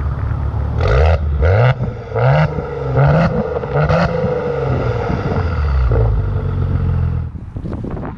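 Maserati Ghibli S Q4's twin-turbo V6 exhaust at idle, revved in five quick throttle blips in the first four seconds, each rising and falling back, then settling into a steady, slightly raised run.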